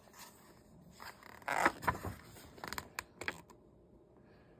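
A page of a picture book turned by hand: a paper swish about a second and a half in, followed by a few light taps and rustles of the pages being handled.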